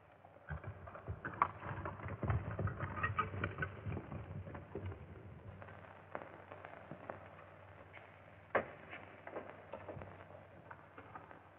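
Scattered faint clicks and knocks over the steady hum of an old film soundtrack, busiest in the first few seconds and sparser after, with one sharper knock later on.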